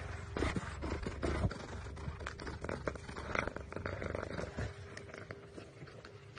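A cat nosing and licking at a phone lying in a cardboard box, right against the microphone: irregular close taps, scrapes and rubbing over a low rumble.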